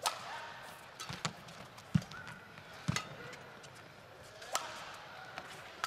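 Badminton rally: sharp cracks of rackets striking the shuttlecock about once a second, with thuds of footfalls and shoes squeaking on the court mat between hits.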